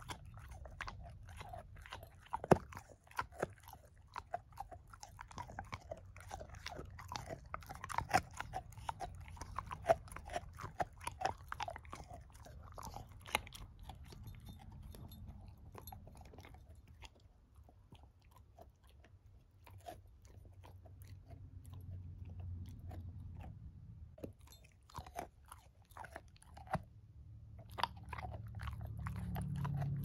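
A shepherd-mix puppy crunching and gnawing on a bone right next to the microphone: a dense run of sharp crunches that thins out about halfway and picks up again later. A low rumble grows louder near the end.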